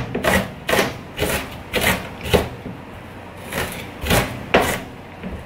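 Kitchen knife chopping sliced onion on a plastic cutting board: sharp blade-on-board knocks, about two a second, with a short pause in the middle.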